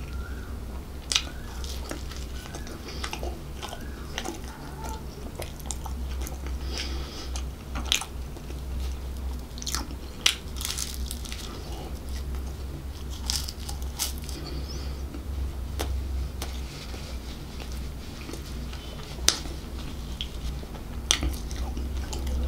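Close-miked chewing and biting of flaky pastry, the crust crunching with sharp, irregular clicks every second or two. A low, steady hum runs underneath.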